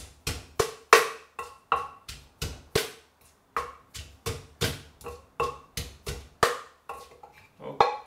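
Wooden pestle pounding garlic and whole Thai chillies in a clay mortar: an even run of knocks about three a second, each ringing briefly. It is the crushing stage, pounding the pieces down in size.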